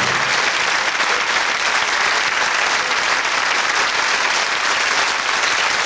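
Studio audience applauding steadily, a dense, even clapping at the close of a magic act. The last of the music stops just as it begins.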